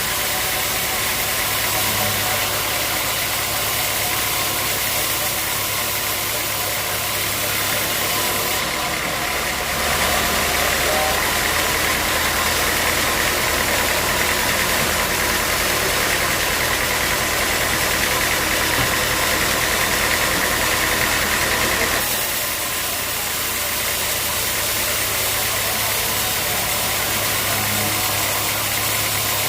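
Sawmill machinery running steadily. From about ten seconds in until about twenty-two seconds in it grows louder, with a high whine, then settles back.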